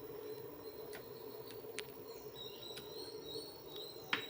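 Birds chirping faintly in the background, mostly in the second half, over a steady low hum, with a sharp click near the end.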